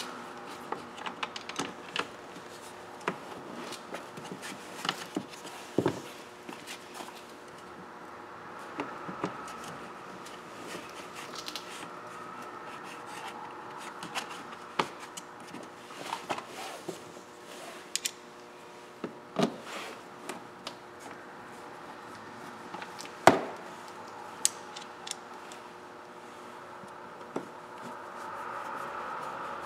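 Sporadic small clicks, scrapes and rubbing of hand work on plastic dashboard trim panels as screws are started loosely with a screwdriver. There is one sharper knock about three quarters of the way through, over a faint steady hum.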